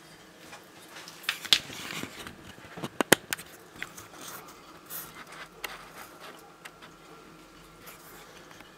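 Dumeril's monitor biting and crunching its food: a string of sharp cracks and clicks, loudest about one and a half and three seconds in, with lighter ones after.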